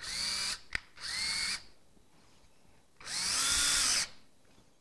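Power drill run in three short bursts, the last about a second long, as a plastic eave closure is fixed to a fascia board, its motor spinning up and winding down each time. A sharp click comes between the first two runs.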